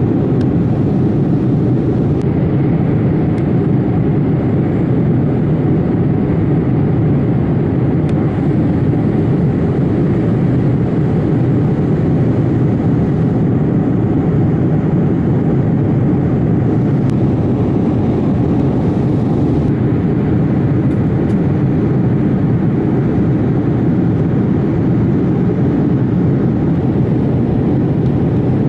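Steady cabin noise of a jet airliner in flight, heard from inside the cabin: the engines and the airflow make an even, deep, unbroken drone that doesn't change.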